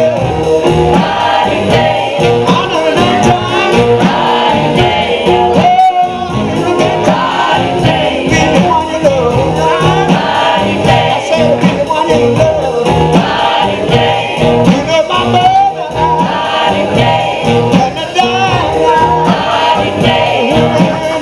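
Live band playing a soul song: a male lead singer sings over keyboard and electric guitar, with a steady beat.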